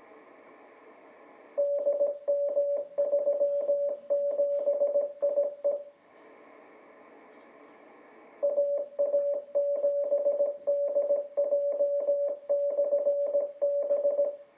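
Morse code from a 12-metre amateur radio beacon coming through a Yaesu FT-950 HF transceiver's speaker: a steady single-pitched tone keyed on and off in dots and dashes. It comes in two runs of about four and six seconds, with receiver hiss in the gap.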